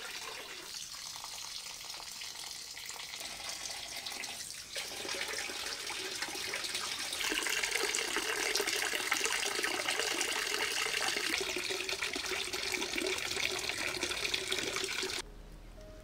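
A thin stream of water pouring and splashing steadily into a clay basin. It grows louder about seven seconds in, then cuts off abruptly just before the end.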